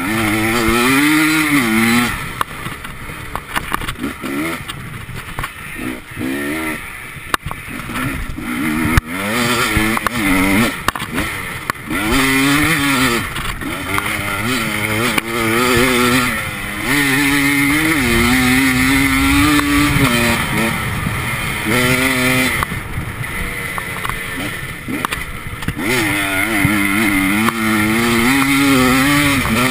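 Enduro motorcycle engine heard from a camera mounted on the bike, revving up and down again and again as the throttle opens and closes and the gears change, with short lulls where the throttle eases off. A few sharp knocks cut through.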